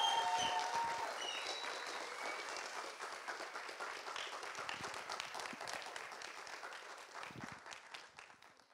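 Audience applauding, a dense patter of many hands clapping that slowly dies away and fades out near the end.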